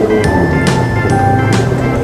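Background music with a steady drum beat, a hit a little under once a second.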